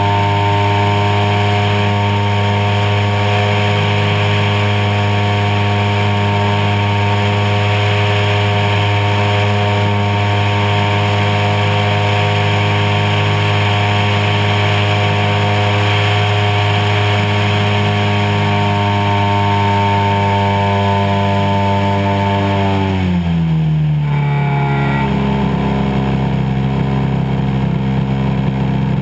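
Desert Aircraft DA-100 twin-cylinder two-stroke petrol engine of a 40% scale Super Cub RC plane, heard close up from on board, running steadily at a high, even pitch. About 23 seconds in it is throttled back: the pitch drops and settles at a lower running speed.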